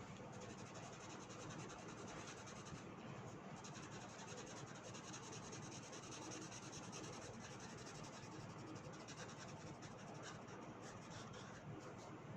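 Faint, continuous scratching and rubbing of a writing tool on paper.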